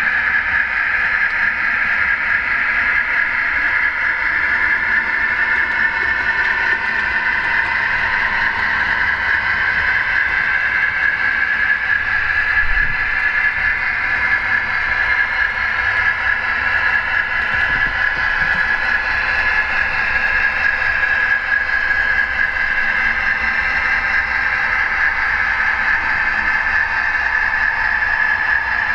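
OO gauge model diesel locomotive running on the layout, giving a steady whine whose pitch drifts slightly with its speed.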